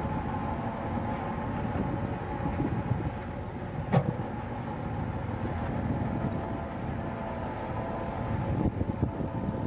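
Massey Ferguson 385 tractor's four-cylinder diesel engine running steadily while it works a rear-mounted hydraulic digging bucket, with one sharp clank about four seconds in and a few knocks near the end as the bucket digs into soil.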